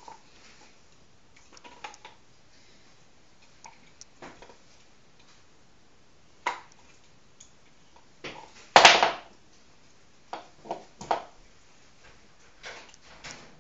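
Dog chewing and gnawing on a hard bone treat: irregular clicks and cracks of teeth on the bone, with one loud crunch about nine seconds in and a quick cluster of cracks about two seconds later.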